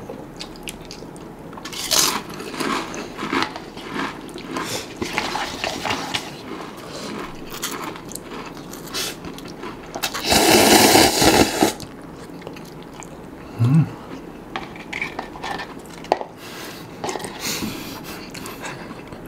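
Close-up eating sounds: potato crisps crunched and chewed, then a loud slurp of instant noodles lasting about two seconds, about ten seconds in, then more chewing.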